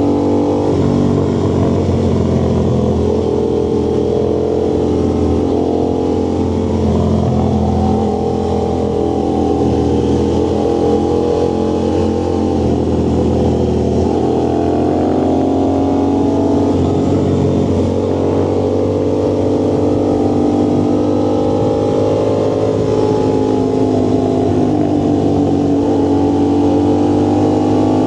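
Vehicle exhaust running loudly during a ride, its engine note repeatedly rising and falling in pitch as the revs change.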